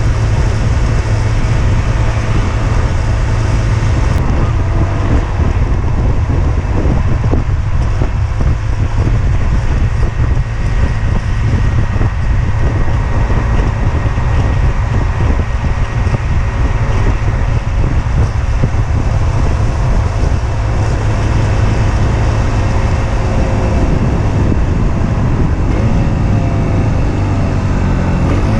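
Husqvarna Svartpilen 125 single-cylinder four-stroke engine running as the motorcycle rides along, under a steady rush of wind noise. Near the end the engine's pitch rises and falls as the revs change.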